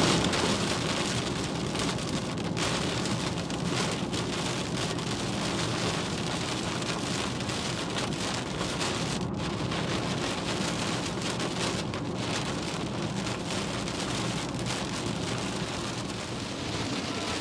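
Heavy rain beating on a moving car's windshield and roof, heard from inside the cabin: a steady, even hiss.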